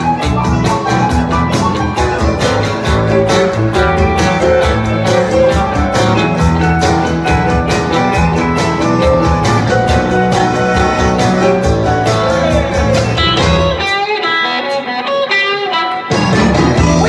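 Live band playing an instrumental passage: electric guitars, accordion, keyboard and drums. Near the end the band drops out for about two seconds, leaving only a thin higher line, then comes back in full.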